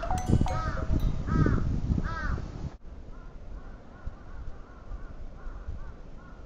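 Crows cawing in a series of harsh calls, loud over a low rumble of wind noise; just under three seconds in the sound cuts abruptly to fainter, more distant cawing.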